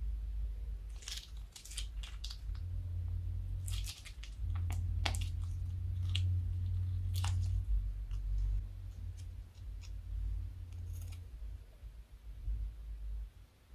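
Slime squished out of a plastic piping bag into a bowl: irregular sharp crackles and pops over a dull low pressing sound, which is heaviest in the middle.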